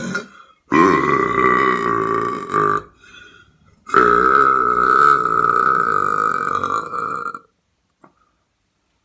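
A person belching loudly twice: a belch of about two seconds, then after a short pause a longer one of about three and a half seconds, both rough and steady in pitch.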